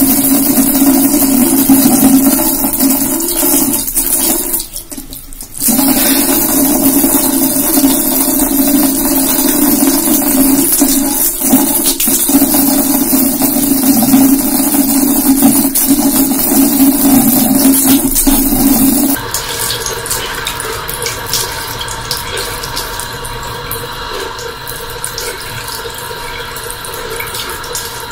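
Tap water running in a thin stream into a ceramic washbasin: a steady, loud splashing hiss with a short dip about five seconds in. About two-thirds of the way through it gives way to a quieter trickle from a second tap running into another basin.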